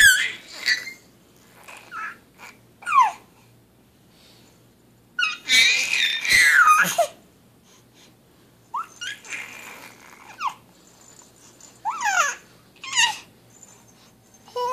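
A baby babbling and squealing in short high-pitched bursts, many falling in pitch, with a longer, louder squeal about five to seven seconds in.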